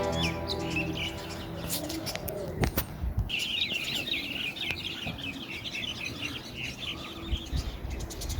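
Small birds chirping in a quick twittering run for about three seconds, starting about three seconds in, with a few low knocks before and after.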